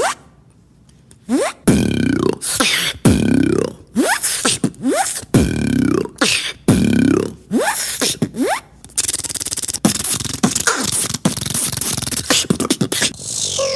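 A beatboxer imitating sound effects with mouth and voice: after a brief pause, a falling swooping sound repeated about five times, then a continuous rattling buzz for several seconds.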